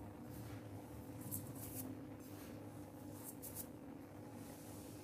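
Faint soft scraping and rustling as rice flour is tipped out of a small steel bowl into a steel mixing bowl of gram flour, over a low steady hum.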